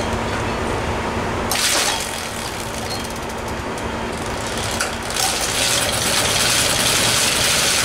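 Motobecane moped pedalled on its stand in a start attempt: the pedals, chain and rear wheel whir and rush, and the two-stroke engine does not fire, held back by too much compression. A short hiss about one and a half seconds in; the rushing grows louder about five seconds in.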